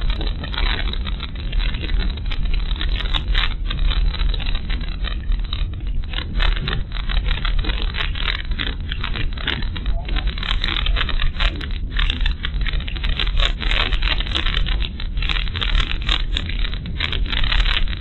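A car on the move, heard from inside the cabin through a dashcam microphone: a steady low rumble of engine and road noise with dense, irregular crackling and rattling over it.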